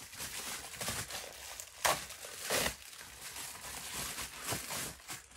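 A padded plastic mailer being torn open and handled, crinkling throughout, with a few louder rips and crackles around two seconds in and again later.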